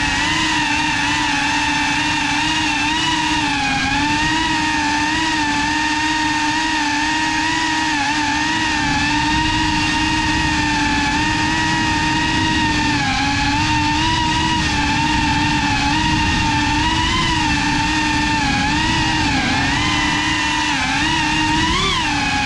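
GEPRC CineLog35 cinewhoop's brushless motors and ducted propellers whining steadily, the pitch wavering up and down with throttle and rising sharply for a moment near the end.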